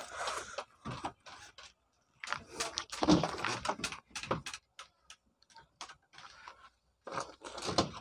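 Handling noise on a wooden workbench: a string of irregular knocks, clicks and rustles in short clusters as tools and a small cardboard box are picked up and set down.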